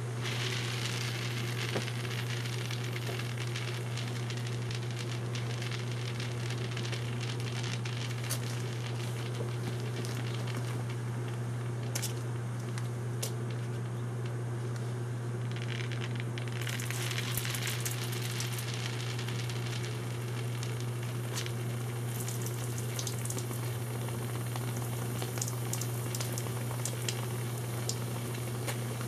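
Steam injected into a wavy water-filled hose, hissing and sizzling steadily, with scattered sharp snaps and knocks: condensation-induced water hammer as steam pockets collapse in the condensate at the hose's low spots. A louder burst of hiss comes a little past the middle, the snaps cluster near the end, and a steady low hum runs underneath.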